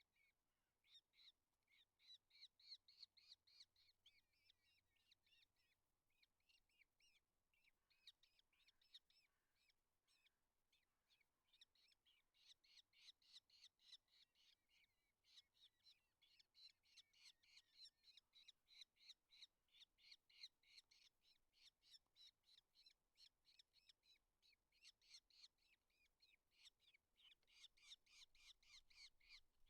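Eurasian hobbies calling at the nest: a long, faint run of short, high-pitched calls repeated several times a second, thinning out for a few seconds before picking up again.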